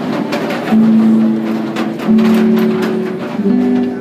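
Music with slow, long held low notes, each lasting about a second.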